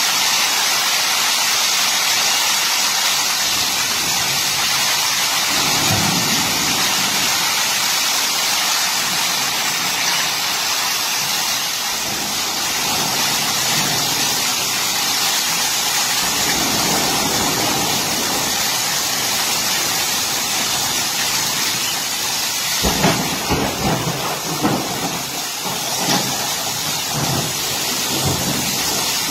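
Heavy thunderstorm rain pouring down in a steady loud hiss, with low rumbling gusts of wind buffeting through it, strongest and most uneven in the last few seconds.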